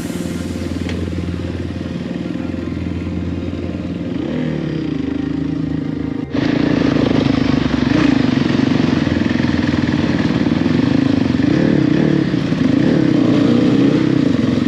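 Enduro motorcycle engine running on a trail ride, its pitch rising and falling a little with the throttle. There is a brief dropout about six seconds in, after which it is louder.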